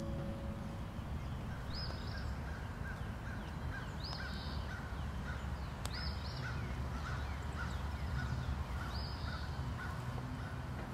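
Outdoor woodland ambience: a bird gives a short, high call about every two seconds, while a lower note repeats steadily about twice a second, over a faint low rumble.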